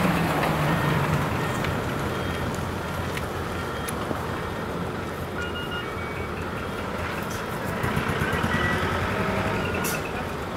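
Decorated diesel trucks driving slowly past and pulling away, engines running at low speed; the nearest is loudest at the start, its engine note dropping as it goes by.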